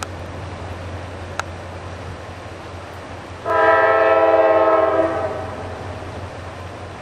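Diesel freight locomotive's multi-note air horn sounding one steady blast of about a second and a half, partway through, over the steady low rumble of the train climbing a grade.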